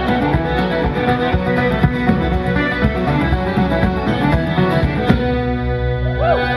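Irish traditional band playing a set of reels on piano accordion, fiddle, tenor banjo, bodhrán and guitar, in a fast driving rhythm. About five seconds in the tune stops on a held final chord that rings on to the end.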